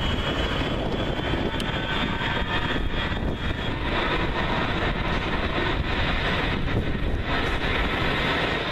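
Boeing 707-300's four Pratt & Whitney jet engines at takeoff power during the takeoff roll: a loud, steady jet rumble with a thin high whine above it.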